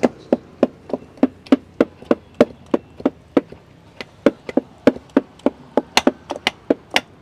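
A utensil striking in a steady rhythm, about three knocks a second, as roasted tomato is worked into the aubergine-and-potato chokha. The strikes grow louder near the end.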